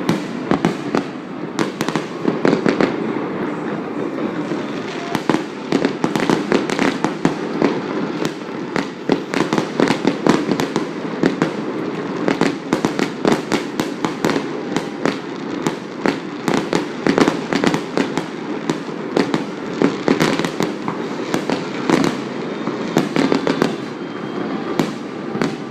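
A New Year's fireworks display: continuous crackling with many sharp bangs from bursting shells, dense throughout.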